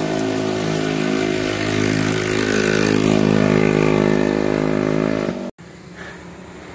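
Motorcycle-sidecar tricycle's engine running steadily close by, an even engine hum with road and wind hiss; it cuts off suddenly about five and a half seconds in, leaving quieter road noise.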